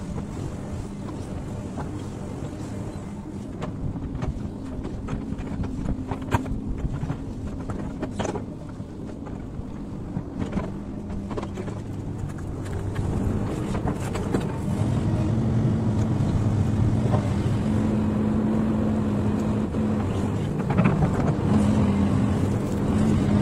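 XCMG hydraulic excavator's diesel engine running with a steady hum, growing louder about halfway through as the machine works and travels on its tracks, with scattered clanks.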